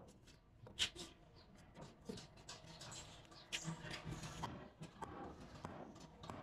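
Faint, scattered knocks and clicks of wooden blocks and timber being set down and shifted on a concrete floor, with a sharper knock about a second in and another a little past the middle.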